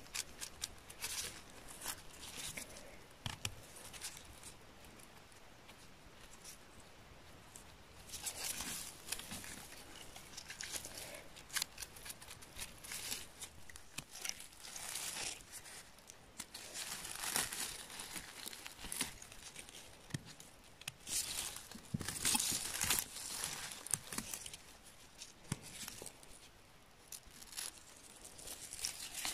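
A small bristle brush scratching dirt off freshly picked chanterelle mushrooms, mixed with rustling and snapping of dry grass, moss and twigs as the gloved hand pulls mushrooms from the ground. The scratching and rustling come in irregular bursts with short lulls.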